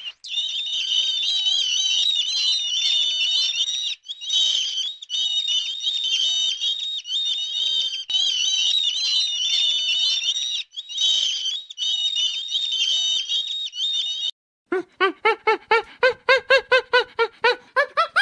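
A flock of birds chirping and twittering in a dense, high-pitched chatter, breaking off briefly twice. In the last few seconds it gives way to a quick series of lower calls, about four a second, rising in pitch toward the end.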